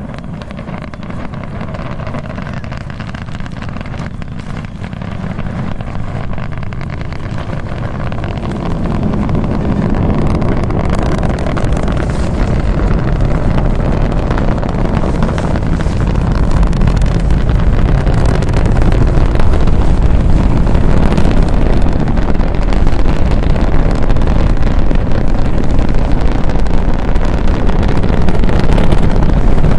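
SpaceX Falcon Heavy's 27 Merlin engines at liftoff heard from miles away: a deep, noisy rumble that grows steadily louder as the launch sound arrives.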